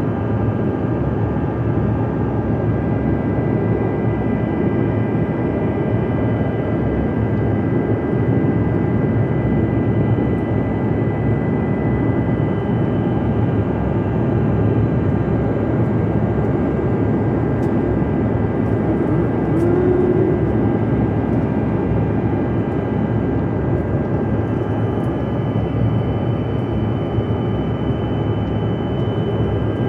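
Jet airliner cabin noise in flight: a steady rush of engines and airflow heard inside the cabin, with a few faint steady high whining tones over it.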